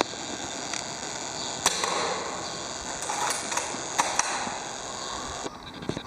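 Airsoft gun firing: several short sharp pops and clicks, the loudest two a couple of seconds apart.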